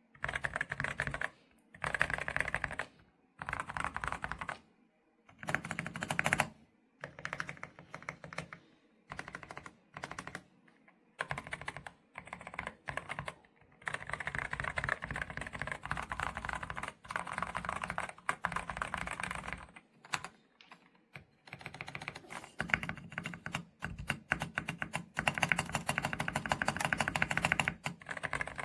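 Typing on a mechanical keyboard with Akko V3 Penguin tactile silent switches. Rapid key presses come in short bursts with brief pauses, then in longer unbroken runs.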